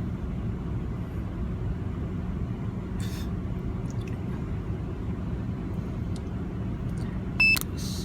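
Ford Expedition's 4.6L Triton V8 idling steadily with a new coil pack on cylinder 4, running normally without the earlier misfire. Near the end there is one short electronic beep from the OBD2 scanner.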